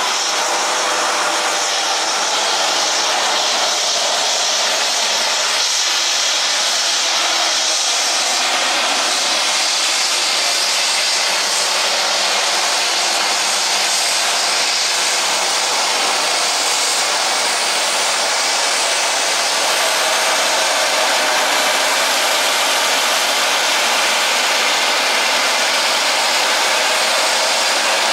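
Turboprop aircraft engines running on the ground: a steady, loud hiss and whine.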